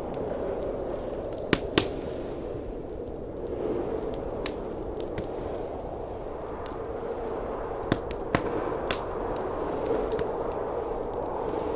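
Wood fire crackling in a fireplace, with scattered sharp pops, over a steady howling blizzard wind that swells and eases slowly.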